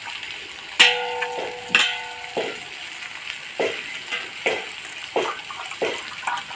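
Handfuls of wet boiled neem flowers being squeezed out over a steel pot of water, with short splashes and drips of water falling back into the pot every second or so. Just under a second in, something strikes the steel pot with a ringing metal clink, and a second clink follows about a second later.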